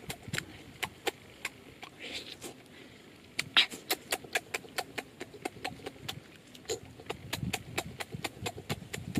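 A child chewing meat noisily, with wet lip smacks and mouth clicks coming irregularly, about five a second.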